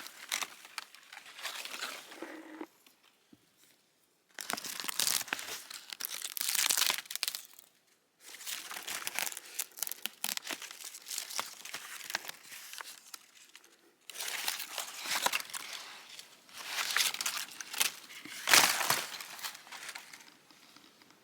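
Loose, papery birch bark being peeled and torn from a tree, crackling and crinkling in several bouts separated by short pauses.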